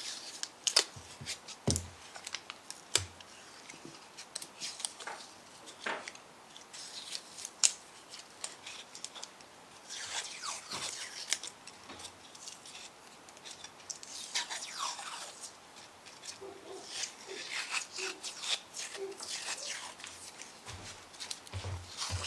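Painter's tape being pulled off the roll, torn and pressed around a stack of wood strips: a run of sharp clicks and taps, with stretches of rasping noise as the tape peels off, and a few low knocks of the wood on the bench.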